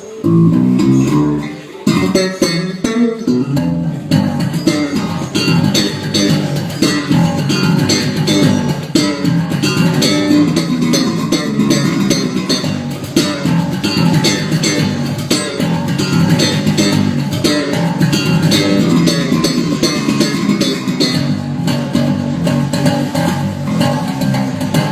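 Electric bass guitar playing a busy line of quickly changing notes, with guitar sound above it.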